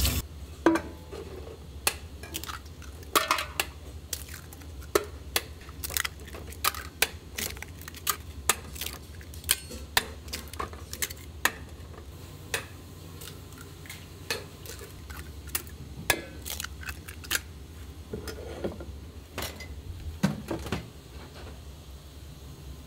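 Dishes and metal utensils clinking and knocking as they are handled in a kitchen: irregular sharp clinks, thickest in the first half and thinning out later, over a steady low hum.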